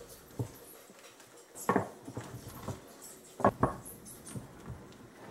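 Wooden spatula stirring sticky melted marshmallow in a ceramic bowl, knocking against the bowl a few times, with the two loudest knocks close together about three and a half seconds in.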